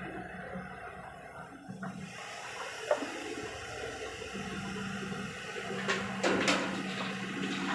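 Excavator at work: a rushing noise like soil pouring, over a steady low engine hum that sets in about halfway through, with a few sharp knocks.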